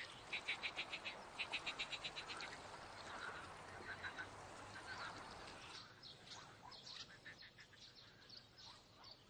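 Frogs calling from the lake in rattling trains of quick pulses, about ten a second, three runs in the first couple of seconds, with short bird chirps over them from about six seconds in.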